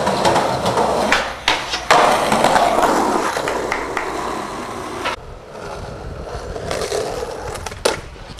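Skateboard wheels rolling on concrete, with several sharp clacks of the board striking the ground, the loudest about two seconds in.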